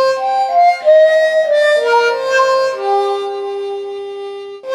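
A slow instrumental tune of held, reedy notes, often several sounding together, ending on a long low note near the end before the phrase starts again.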